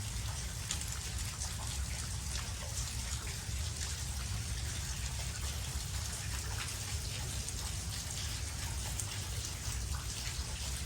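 Steady rain falling, with many small drop ticks pattering on surfaces close by over an even hiss and a low rumble.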